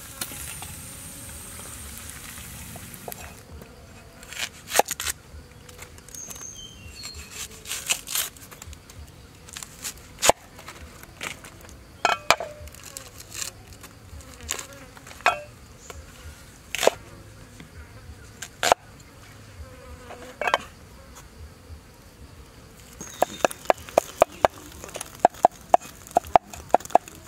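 Sizzling from fried eel pieces in a pan for the first few seconds, then a cleaver cutting on a wooden chopping board: scattered single cuts as an onion is cut, then a fast run of chops, about three or four a second, near the end as garlic is minced.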